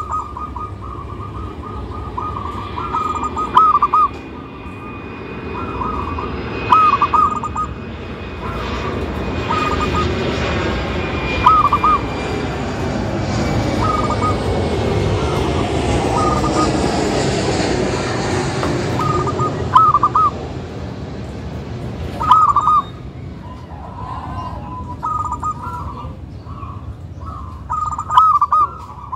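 Zebra dove cooing: short, quick, rolling coo phrases repeated every one to three seconds. A broad rushing noise swells and fades behind it through the middle.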